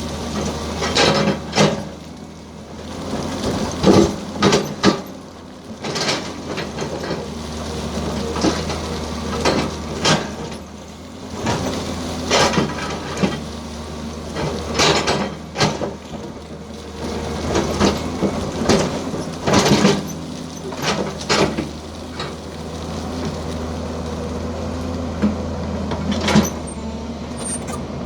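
Hydraulic excavator's diesel engine running steadily while its steel bucket digs into crushed stone, with repeated clanks and rattles of rock against the bucket every second or two.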